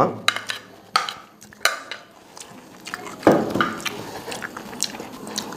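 Spoon and ceramic plates clinking as fried rice is served onto a plate: a few sharp clicks in the first two seconds, then a louder clatter a little over three seconds in.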